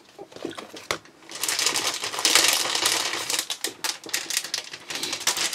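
Paper sheets and their packaging rustling and crinkling as a pack of printed sheets is opened and handled. There is a sharp click about a second in, then a dense run of crackling rustles until near the end.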